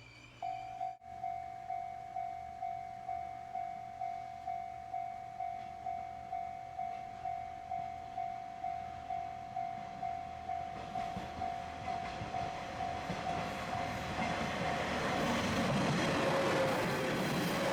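Japanese level-crossing warning bell ringing about twice a second, while a diesel train on the JR Dosan Line approaches and passes over the crossing. The train grows loud near the end and drowns out the bell.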